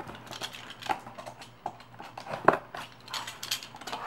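Cardboard shipping box being handled and opened: a few scattered clicks and knocks, the sharpest about two and a half seconds in, then a brief rustle.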